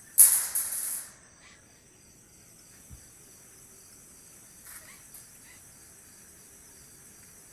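Crickets chirring steadily in a night-time insect chorus. A loud burst of noise about a second long cuts in near the start.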